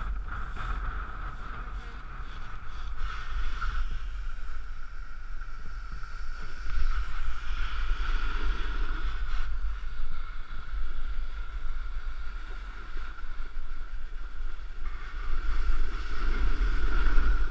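Wind buffeting a head-mounted action camera's microphone during a run down a ski slope, with a steady scraping hiss of snow sliding under the rider. The rush swells and eases with the rider's speed.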